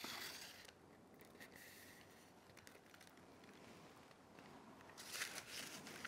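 Faint rustling and scraping of hands handling a foam craft piece and a paper straw on a paper-covered table, in short bursts at the start, briefly after a second, and again about five seconds in.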